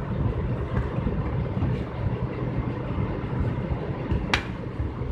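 Steady low background rumble, with a single sharp, light click about four seconds in as a small screwdriver works at the screws of an Asus mini laptop's keyboard panel.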